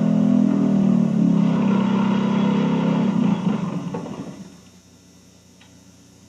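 Single-rotor Mazda rotary engine running steadily, then shut off about three seconds in and winding down to a stop by about four and a half seconds, leaving only a faint hum and tape hiss.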